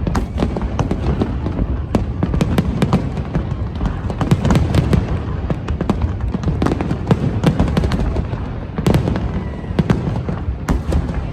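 Fireworks display going off: many sharp bangs and crackles in quick, irregular succession over a continuous low rumble.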